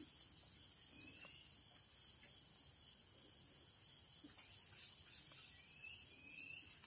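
Faint, steady, high-pitched chirring of crickets, with a few faint short rising chirps: one about a second in and two near the end.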